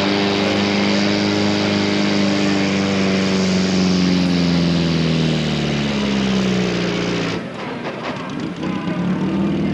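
Modified tractor-pulling vehicle with a Citroën Traction Avant body, its engine running flat out under full load as it pulls the weight sled. The engine note sinks slowly as the sled bogs it down, then breaks off sharply about seven seconds in.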